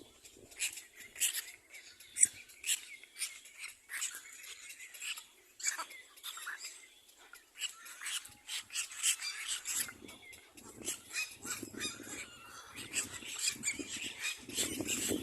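Little black cormorant chicks begging, a busy stream of short, high-pitched squeaky calls. About ten seconds in, a lower, rougher sound joins them.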